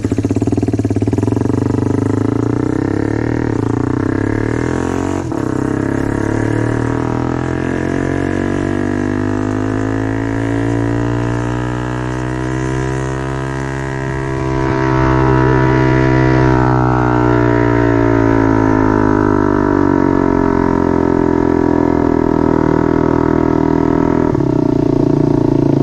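Motorcycle engine running through a temporary exhaust, with a steady, slowly shifting pitch; it gets louder about fifteen seconds in.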